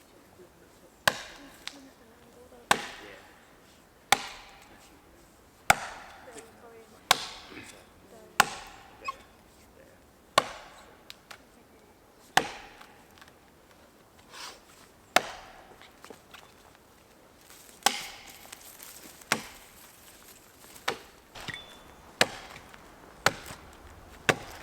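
Felling axe chopping into a standing spruce trunk to cut the felling notch: a steady series of sharp wooden strikes, roughly one every second and a half.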